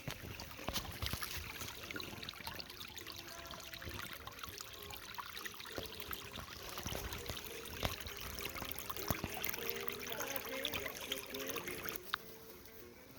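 Water trickling, with scattered clicks and knocks.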